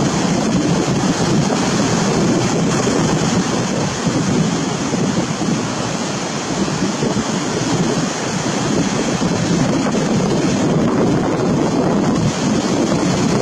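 Steady rushing of ocean surf, with wind buffeting the microphone.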